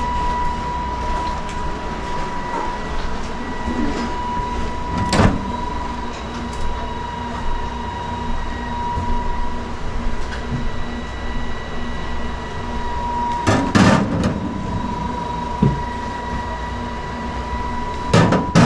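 Kitchen utensils and knives handled at a counter: a few short knocks and clatters about a third of the way in, a cluster about three quarters through and several more near the end, over a steady background hum with a thin high whine.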